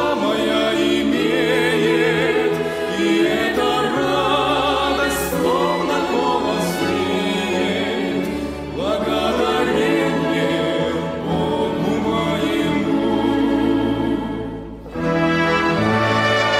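Background choral music: a choir singing held chords with vibrato over orchestral accompaniment. The music dips briefly near the end, then picks up again.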